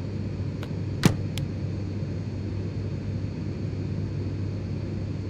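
Steady flight-deck noise of a Boeing 737NG simulator climbing on one engine: a low, even hum of engine and airflow, with one sharp click about a second in.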